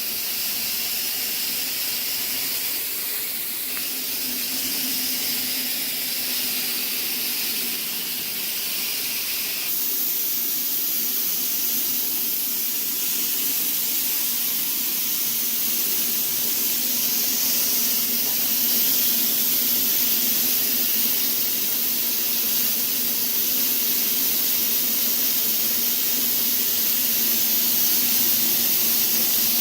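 Dry-fog sterilization fogger spraying with a steady hiss and a faint hum underneath, getting slightly louder toward the end.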